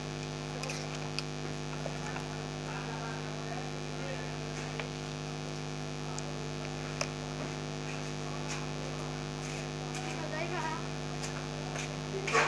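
Steady electrical mains hum, a low buzzing drone, with a few faint light clicks and taps from handling wires during soldering.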